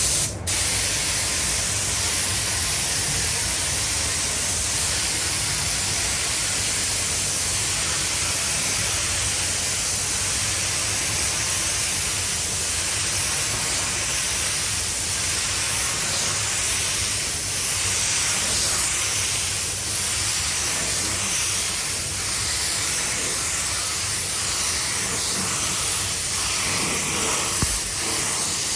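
Compressed-air paint spray gun hissing steadily as paint is sprayed onto a car body, with a brief break just after it starts.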